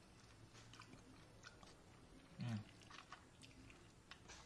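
Faint chewing and mouth clicks of someone eating, with a short low hum about two and a half seconds in.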